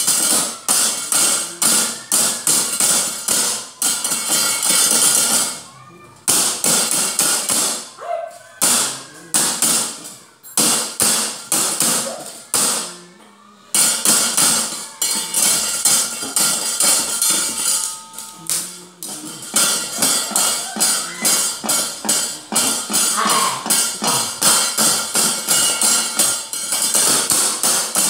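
A wayang dalang's percussion: rapid strikes of a wooden mallet (cempala) on the puppet chest and the clattering metal keprak plates, in fast flurries broken by brief pauses.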